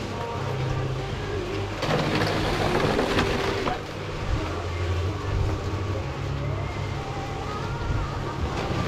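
A small engine running steadily, its note shifting up and down. About two seconds in there is a loud rushing, scraping noise that lasts about two seconds.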